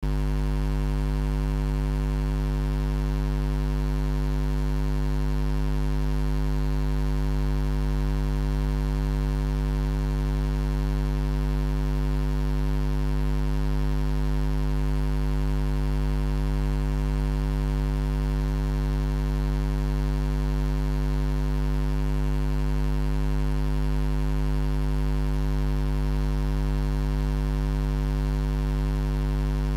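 Steady electrical mains hum: a low buzz with a stack of evenly spaced overtones that never changes in pitch or level.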